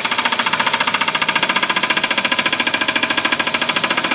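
Impact wrench hammering in one continuous burst of rapid, even blows. It is spinning a nut down an extended wheel stud against a socket spacer, pulling the stud into a Honda Civic Type R rear wheel hub.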